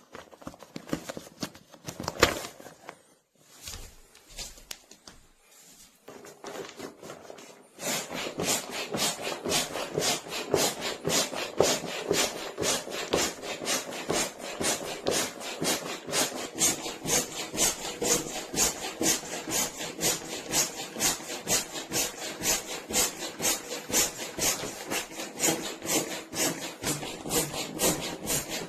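Built-in foot pump of an inflatable camping mattress being pumped: a rhythmic rush of air at about two to three strokes a second, starting about eight seconds in. Before that come irregular rustling and handling noises.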